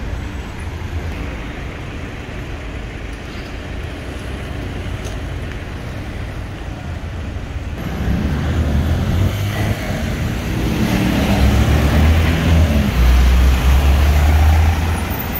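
City street traffic: cars running past, growing louder about halfway through as a vehicle passes close, its low engine rumble loudest near the end.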